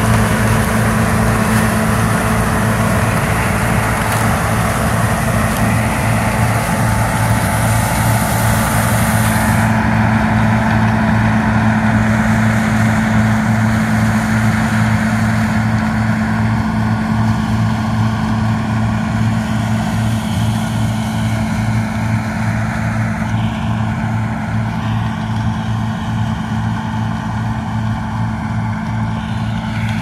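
John Deere 6620 Turbo combine running steadily while harvesting corn: a constant deep diesel engine hum with threshing noise over it. The high hiss drops off about ten seconds in, a faint higher whine comes through in the second half, and the sound eases slightly as the combine moves away.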